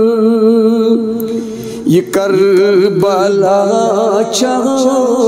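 A man sings a Kashmiri manqabat, a devotional hymn. A long held note with a wavering vibrato fades about a second in, and a new, richly ornamented phrase begins about two seconds in.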